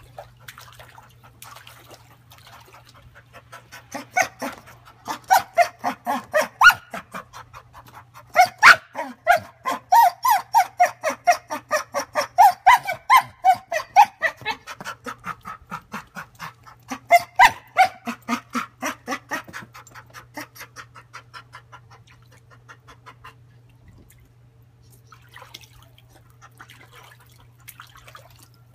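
Dog whining in a quick, rhythmic string of pitched whimpers, about four a second, starting about four seconds in and dying away about twenty seconds in. It is the eager whine of a dog wanting a ball that floats out of reach in a paddling pool.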